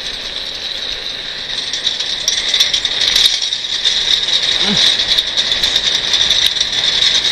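Trike's wheels rolling fast over asphalt, a steady high hiss with rattling clicks that grows louder as the trike gathers speed.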